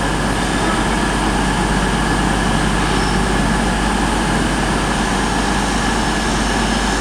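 CrossCountry Class 220 Voyager diesel multiple unit departing, its underfloor diesel engines running steadily under power, with a thin whine above the engine noise.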